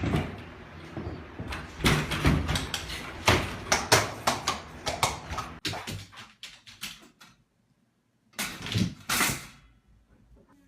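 A quick run of knocks and clatters for about seven seconds, thinning out, then after a short pause two louder noisy bursts.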